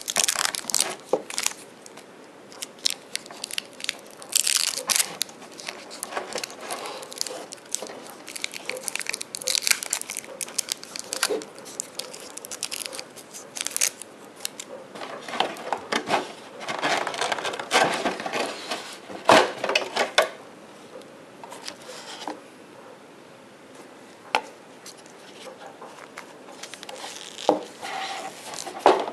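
Clear plastic wrapping crinkling and rustling in the hands, with scattered clicks and knocks from handling a plastic action figure close to the microphone. The sounds come in short clusters, with a quieter stretch after about twenty seconds.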